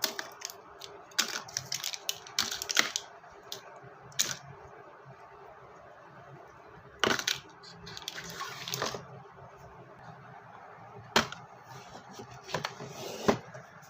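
Candy packets and small containers being handled and set down: irregular clicks and light clatters, with a few short bursts of packaging rustle.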